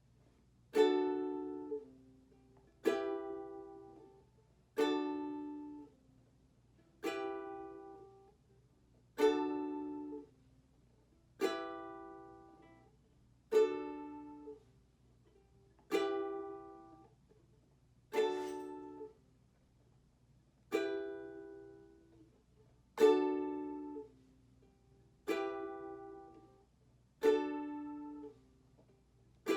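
Ukulele strummed once about every two seconds, each chord left to ring and fade before the next, changing back and forth between D and E minor to practise that chord transition.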